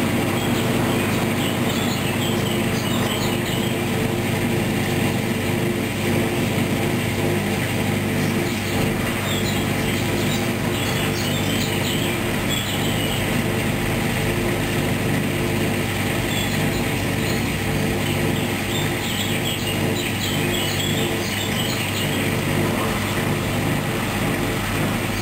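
Hoover washing machine running through a duvet wash, a steady machine hum with scattered short high chirps over it.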